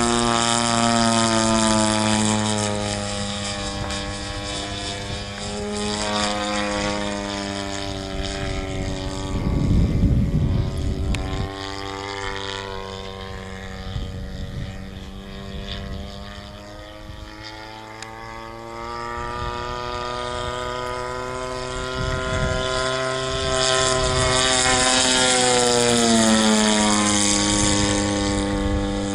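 50 cc petrol engine and propeller of a radio-controlled Ultimate aerobatic biplane running at high power in flight, its note gliding up and down in pitch as it manoeuvres. It fades in the middle as the plane moves away and grows louder near the end, with a gust of wind on the microphone about a third of the way in.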